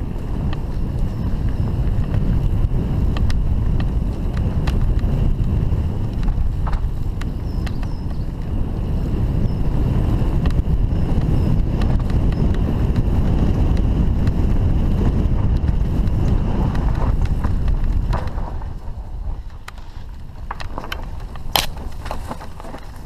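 Mountain bike riding fast downhill on a dirt forest singletrack: steady wind rumble on the microphone, with tyre noise and frequent rattles and knocks from the bike. It eases off after about eighteen seconds, and there is a sharp knock near the end.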